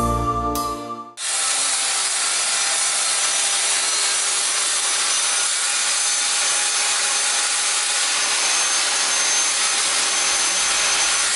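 Handheld circular saw cutting steadily through a wooden sheet for about ten seconds. It follows a second of music that cuts off abruptly.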